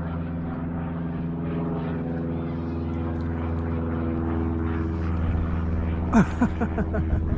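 An airplane flying overhead: a steady engine drone. A few short, sharp sounds break in about six seconds in.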